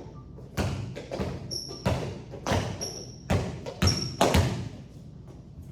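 Basketball on a hardwood court: the ball thumping and bouncing repeatedly, with sneakers squeaking sharply three times.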